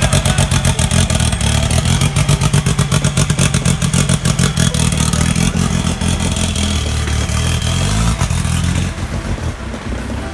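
Off-road vehicle engine running hard under load, its pitch shifting as it revs up and down, with a rapid pulsing clatter.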